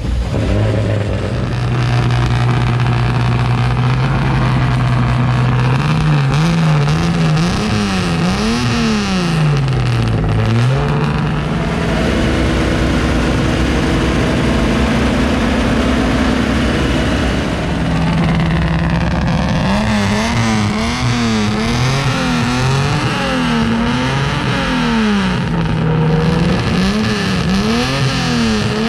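Chevrolet Opala engine idling and then revved, its exhaust note rising and falling with each blip of the throttle. It holds a higher steady speed for a few seconds in the middle, settles back, then is blipped again several times in quick succession.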